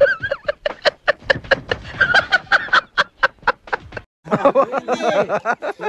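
A woman giggling behind her hand, a quick run of short laughs at about four or five a second that breaks off about four seconds in. Voices talk after it.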